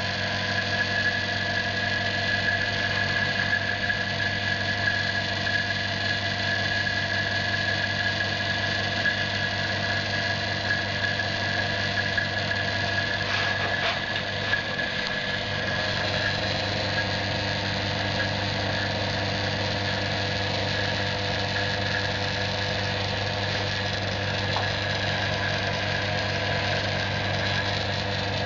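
Oil-filled electric vacuum pump running with a steady hum as it draws the air out of a vacuum press bag.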